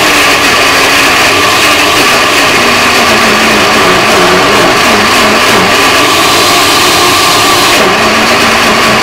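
Countertop blender running continuously, churning a thick mix of frozen bananas and cocoa powder. It is loud and steady, with the motor's lower pitch wobbling up and down in the middle as the thick mixture shifts.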